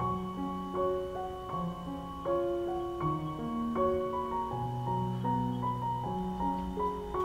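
Background piano music: a melody over long held low notes.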